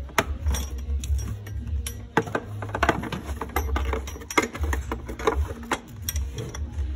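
Irregular metallic clicks and clinks of a 12 mm open-end wrench being worked on a spark plug wrench in a tight gap on a Honda Transalp XL650V's front cylinder, over a low rumble.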